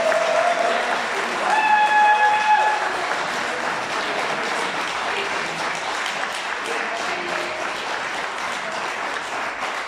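Audience in a hall applauding steadily. A single held tone with overtones stands out over the clapping for about a second, about two seconds in.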